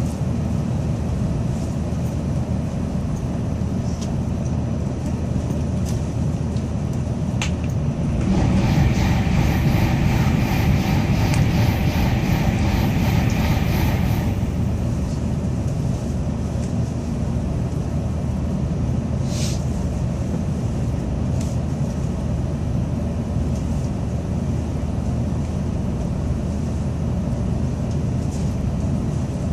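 Cabin noise of a Tokaido Shinkansen train running at speed: a steady low rumble of wheels and air. About eight seconds in, it grows louder for some six seconds, with a fast, even rattle and a hum over it, then drops back to the steady rumble.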